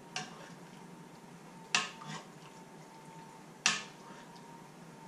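Metal ladle clinking against the side of a metal pot while pan juices are spooned over a roast: three short clinks, the second and third much louder. A faint steady hum runs underneath.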